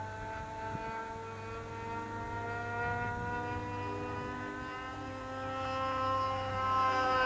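Motor of a vintage RC model airplane buzzing steadily in flight, its pitch sagging slightly and then rising, growing louder near the end.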